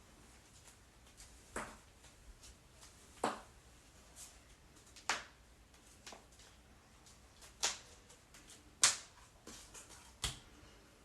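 Human joints cracking: six sharp pops spaced every second or two, with a few fainter clicks between them. The loudest pop comes about nine seconds in.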